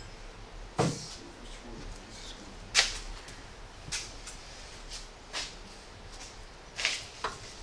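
Workshop clatter from hands-on work in a car's engine bay: about six sharp knocks and clicks at irregular intervals, the loudest about three seconds in, over a low steady hum.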